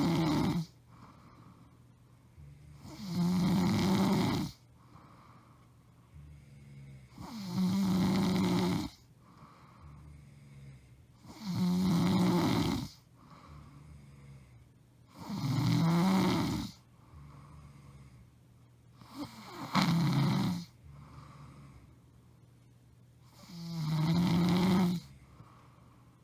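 A woman snoring loudly in her sleep: a rasping snore on each in-breath, repeating about every four seconds and lasting a little over a second each time, with faint breathing in between.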